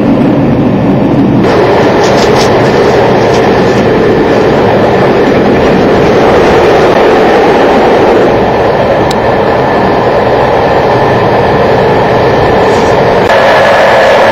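Passenger train running at speed, heard from inside the carriage: a steady, loud rumble and rattle of wheels on track. The noise changes in tone about a second in and again near the end.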